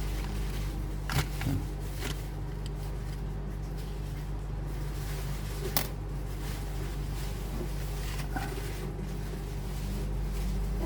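A few small clicks and knocks from handling, around a second in and again near six seconds, over a steady low hum.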